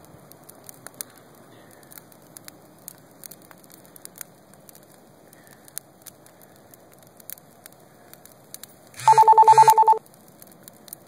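Fire burning with scattered crackles and pops. About nine seconds in, a loud electronic ring, a rapidly pulsing two-pitch tone like a telephone ringing, sounds for just under a second.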